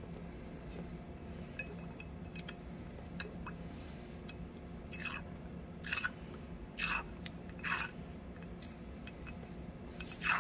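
Small clicks and taps of handling, then four or five swishes about a second apart, each falling in pitch, as a capped jar of water-contaminated gasoline is shaken to mix in a fuel additive. A steady low hum runs underneath.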